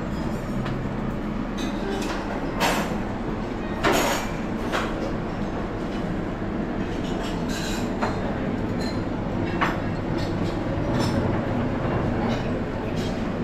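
Breakfast-buffet room noise: a steady low hum with scattered sharp clinks of dishes and glassware, the loudest about four seconds in.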